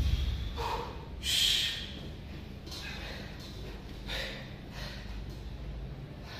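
A weightlifter breathing hard between sets of barbell lifts: several short, hissing exhales, the loudest about a second and a half in, as he recovers from the effort.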